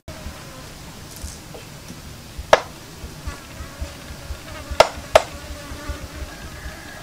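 Three sharp knocks, about two and a half, four and three-quarter and five seconds in, with a few lighter clicks over a faint steady buzz.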